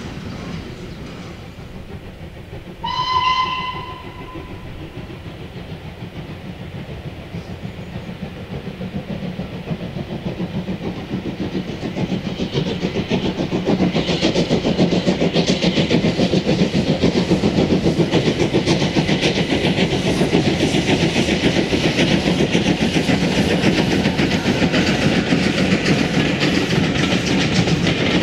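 A steam locomotive's whistle sounds once, briefly, about three seconds in. Then a steam locomotive hauling a train approaches and passes close by, its fast exhaust beats and the wheels' clatter growing louder and then holding steady.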